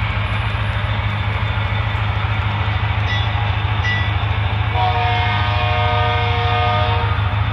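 HO-scale model diesel locomotive sound through a Broadway Limited Rolling Thunder subwoofer: a steady deep engine rumble, with a multi-note horn blast of about two seconds starting about five seconds in.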